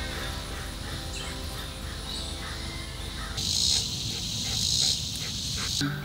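Soft background music fading away over the first three seconds, then a high, steady buzzing of insects that stops abruptly just before the end.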